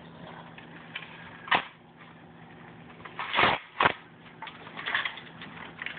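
A few knocks and scuffs as a toddler climbs into a wooden shelf compartment: one sharp knock, then a louder scuff and a second knock about halfway through, with lighter rustling after.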